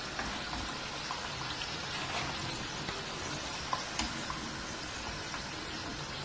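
Battered banana fritters deep-frying in hot oil: a steady sizzle as golden pieces are lifted out. A couple of light clicks about four seconds in.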